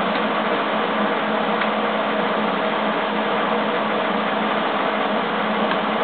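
Millermatic 175 wire-feed (MIG) welder running an arc on quarter-inch steel plate: a steady even hiss with a constant low hum beneath it, unbroken throughout.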